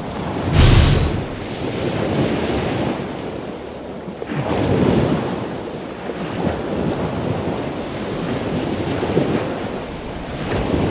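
Rushing, surf-like noise that swells and fades every couple of seconds, loudest in a sharp hissing surge about a second in.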